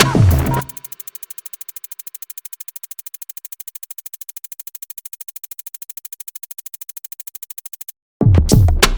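Electronic background music: a heavy drum-machine beat drops out about a second in, leaving a quiet, fast ticking synth pulse, and the beat comes back in loud near the end.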